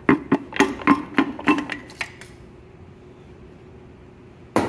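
Knocks from a tool handle driving a Nissan Z24 piston out through its cylinder bore: about eight quick ringing taps in the first two seconds, then one heavier knock near the end.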